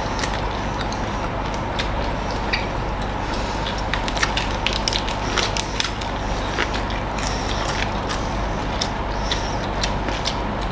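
Mukbang eating sounds: chewing and crunching of crispy bánh xèo (Vietnamese crispy pancake) and fresh greens, heard as scattered sharp crackles and clicks over a steady background hiss.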